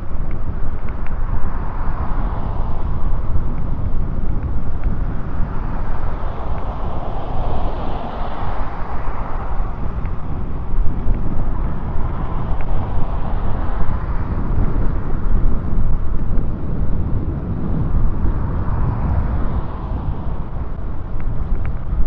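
Wind rushing over the microphone of a camera riding on a moving e-bike: a steady, loud, rumbling rush with slow swells and no distinct events.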